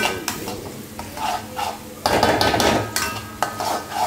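Metal spatula stirring and scraping fried noodles around a hot metal wok in repeated strokes, with frying sizzle underneath. There is one longer, louder scrape about halfway through.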